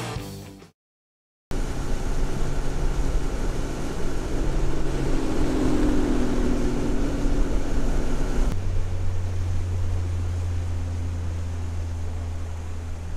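Music fades out, a moment of silence, then a Mercury outboard motor runs steadily at speed, pushing a small jon boat, with wind and rushing water. About eight seconds in the sound changes to a deeper, steadier engine drone with less hiss.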